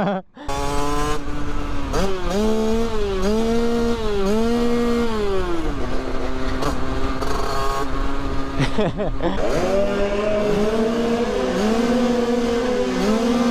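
Two-stroke Beta Track moped engine with a 70 cc top-end kit, a Most expansion exhaust and a 21 mm Dellorto carburettor, ridden hard. The engine note climbs and drops back again and again as the rider works the throttle and gears, with a steadier stretch in the middle.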